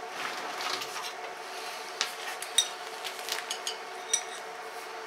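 Kinchrome portable air compressor running with a steady hum, under test to see whether it builds pressure. A few sharp metallic clicks and clinks sound over it from about two seconds in.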